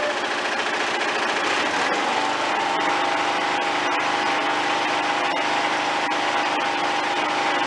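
Small lawn-tractor engine running steadily with the mower deck turning, its pitch settling higher about two seconds in.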